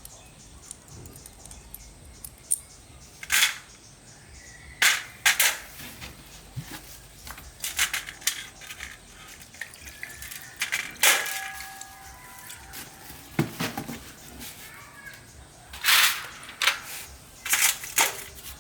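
Scattered sharp knocks and clinks of hand tools and metal engine parts being handled, about ten in all, a few with a brief metallic ring.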